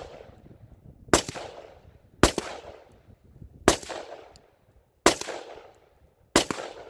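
Custom-built AR-style rifle fired semi-automatic, five single shots spaced about a second or a second and a half apart, each followed by a short echoing tail.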